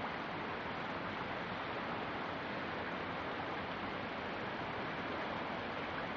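Steady rush of river water running, an even hiss with no change in level.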